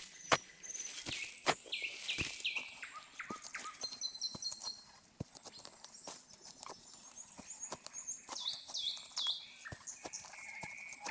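Songbirds singing: runs of short high notes, one stepping down in pitch over a few seconds, with sharp clicks and knocks throughout, the loudest a single knock just after the start.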